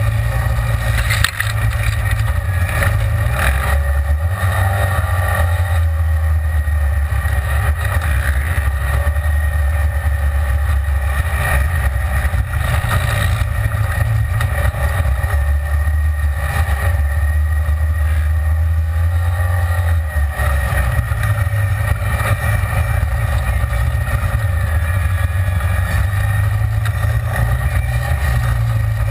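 Side-by-side UTV driving off-road, heard from inside its open cab: a steady low engine drone with scattered knocks and rattles. The drone eases briefly about twenty seconds in.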